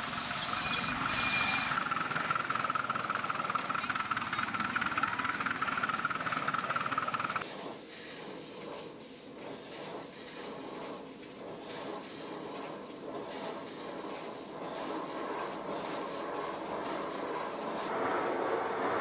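Small live-steam ride-on locomotive running with a steady hiss of steam. About seven seconds in, the sound cuts to a quieter model steam locomotive on a workshop bench, running with faint regular beats.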